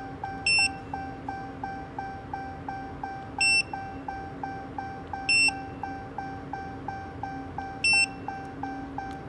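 Handheld OBD-II code reader beeping as its buttons are pressed: four short high beeps spaced a few seconds apart. Under them a soft chime repeats about two and a half times a second over a low steady hum.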